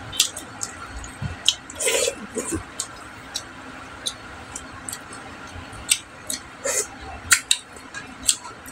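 Wet hand-eating sounds: fingers mixing rice with stingray kinunot on a wooden plate, and chewing. It comes as a scatter of sharp wet clicks and short squishes, with longer ones about two seconds in and again near seven seconds.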